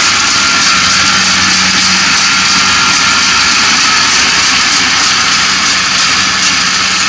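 Kubota ARN460 combine harvester running steadily while it harvests lodged rice: a constant engine hum over a broad rushing noise from the harvesting machinery.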